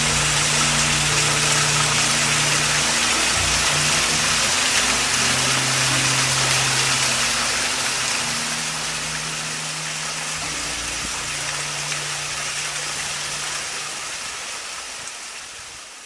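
Steady rush of a waterfall, with soft background music of long held low notes underneath; both fade out near the end.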